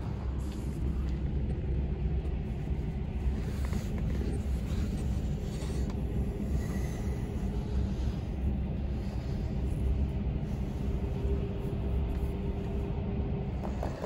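Steady low rumble, with a faint steady hum joining it for a few seconds in the latter half.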